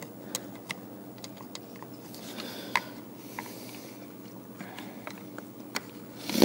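Light clicks, ticks and scrapes of metal picks working against a plastic recoil starter housing and its coiled spring while a starter rope is fished through, over a faint steady hum, with a louder burst of handling noise right at the end.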